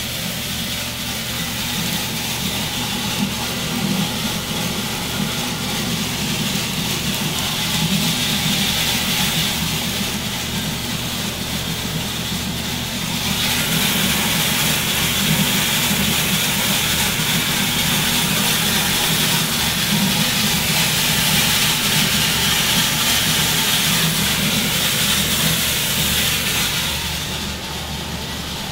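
Probat L12 drum coffee roaster running, a steady machine hum of its motors and fans with a constant hiss. The sound gets louder about halfway through and drops off near the end.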